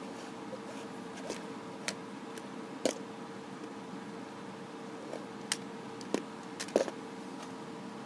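Plastic Lego bricks clicking and knocking as small Lego puzzle boxes are handled and set down: a handful of sharp, separate clicks, with a quick cluster near the end, over a steady faint hum.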